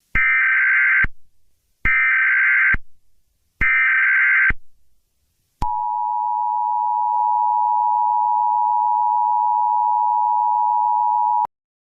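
Emergency Alert System tones: three bursts of SAME header data, each about a second long, then the steady two-tone attention signal held for about six seconds, announcing the start of an emergency alert.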